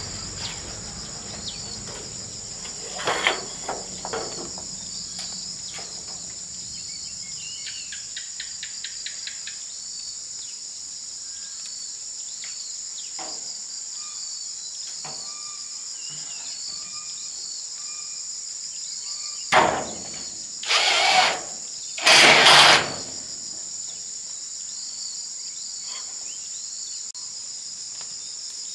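Steady high-pitched insect chorus with scattered small bird chirps. A few knocks early on are followed, about twenty seconds in, by a sharp knock and then two louder harsh noises, each about half a second long.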